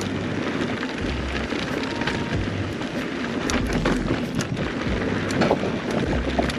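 Mountain bike riding fast down a dirt trail: wind buffets the chest-mounted microphone over the steady rolling noise of the tyres, with scattered sharp clicks and knocks as the bike rattles over bumps.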